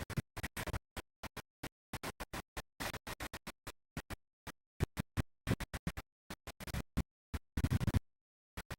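Chopped, stuttering audio: short bursts of noisy sound several times a second, each cut off sharply by dead silence, with a longer silent gap near the end, like a track sliced up in editing or scratched.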